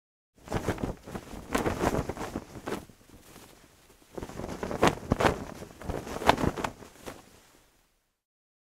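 Title-card sound effect: rushing noise full of crackles and knocks in two swells, the second one louder, then it cuts off.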